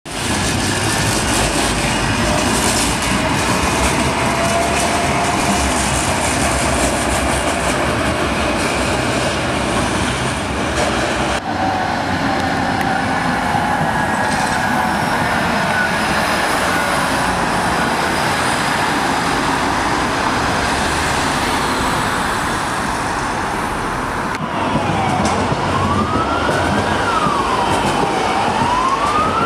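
Trams passing on a city street: a steady rumble of wheels on rails and road traffic, with a faint motor whine gliding slowly in pitch. Near the end an emergency-vehicle siren wails, rising and falling about once every three seconds.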